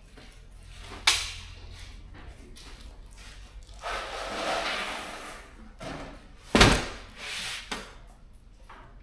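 Stock being handled and put away: a sharp knock about a second in, a few seconds of rustling and sliding, then a loud knock and a couple of smaller knocks, like boxes and drawers being moved and set down.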